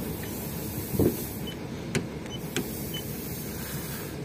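Paint-thickness gauge probe tapped against the car's body panels: a few light taps, the loudest about a second in, over a steady background hiss.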